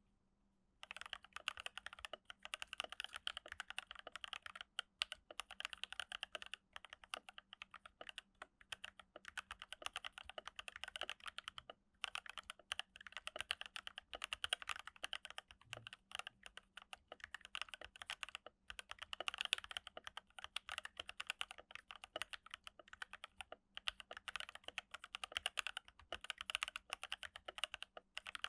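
Keychron K8 mechanical keyboard with FFF switches, lubed with Krytox 205g0 and filmed, typed on quickly, starting about a second in. The keystrokes come in a rapid stream of clacks with a few brief pauses. The stabilizers are lubed with dielectric grease and the case is dampened with foam.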